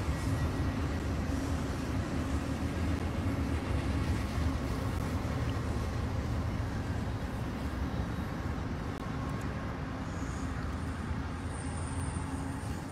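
Long double-stacked container freight train passing at a distance, a steady low rumble that eases off slightly in the second half.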